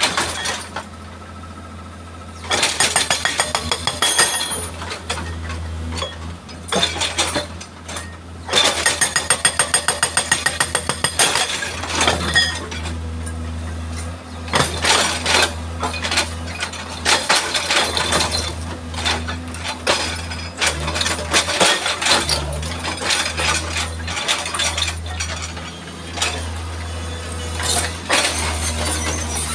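Hydraulic rock breaker on a Tata Hitachi EX110 excavator hammering rock in bursts of rapid blows a few seconds long, over the excavator's diesel engine running steadily.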